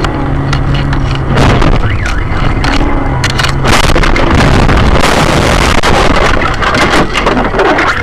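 Car engine humming steadily, heard from a dashcam inside the cabin, then from about three and a half seconds in a loud rough scraping and rattling full of clicks and knocks as the car crashes and the camera is thrown askew.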